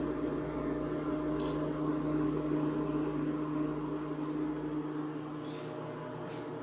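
A steady hum of a kitchen appliance, made of several even tones, with a few light clinks of a wire whisk against a stainless steel mixing bowl: one about a second and a half in and two near the end.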